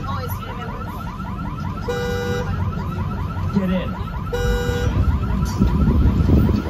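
Car alarm sounding: a fast warbling whoop repeating several times a second, broken every two and a half seconds or so by a half-second horn-like tone. A low rumble swells near the end.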